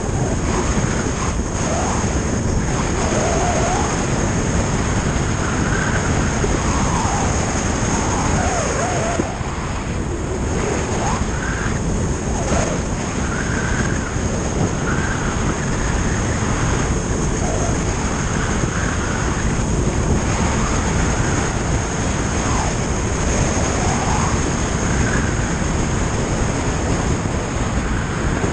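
Touring motorcycle cruising on the open road: a steady rush of wind over the camera's microphone, with the engine running underneath.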